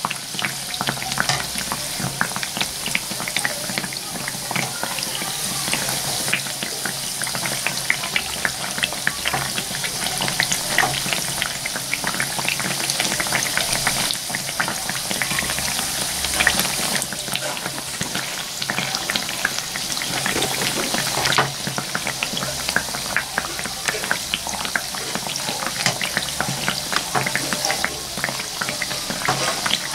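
Banana malpua batter pancakes deep-frying in hot oil in a kadhai: a steady sizzle, thick with small crackling pops.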